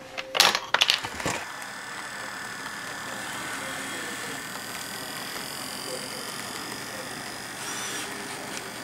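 A few sharp knocks in the first second and a half, then the steady high whine of an N-scale Kato C44-9W model diesel locomotive's electric motor, with its wheels and the coal hoppers behind it rolling on the track.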